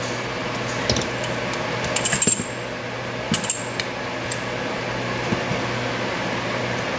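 Small metal clinks and taps of lock-picking tools and a Medeco M3 lock cylinder being handled, in two short clusters about two and three and a half seconds in, over a steady low hum.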